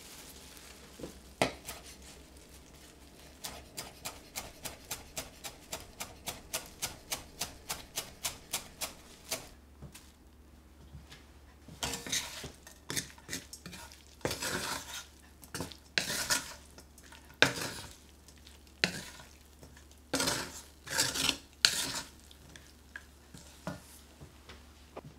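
A knife chopping coriander on a wooden chopping board, a quick even run of strokes about three a second. Then a wooden spoon stirring and scraping shredded pork and potato around a frying pan in irregular bursts.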